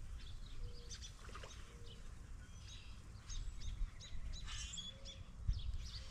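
Songbirds chirping and calling, many short high notes scattered throughout, over a faint low outdoor rumble.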